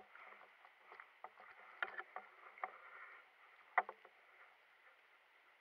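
Handling noise: a few irregular knocks and clicks over a faint rustle, the loudest two about two seconds and four seconds in, fading to a faint hiss near the end.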